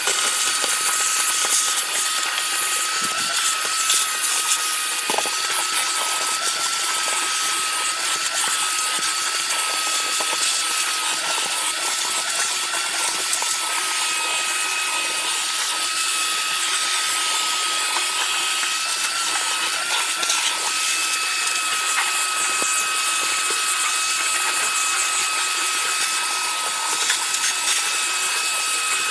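Vacuum cleaner running steadily with its hose nozzle working over the bottom of a grill's firebox: a rushing hiss with a steady whine, and a second, higher whine joining about halfway through.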